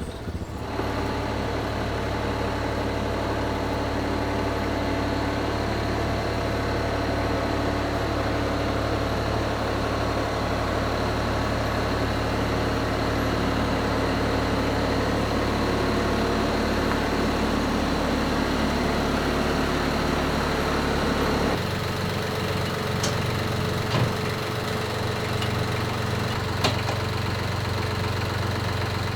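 An engine running steadily at a constant speed. Its sound changes abruptly about 21 seconds in, and a few sharp metallic knocks come near the end.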